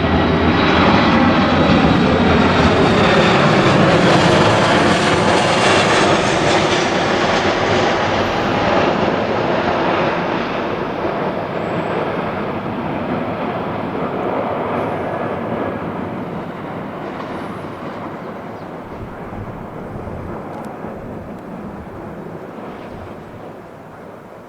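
Jet airliner's engines passing low, with a tone that sweeps down in pitch. The sound is loudest a few seconds in, then fades steadily as the aircraft moves away.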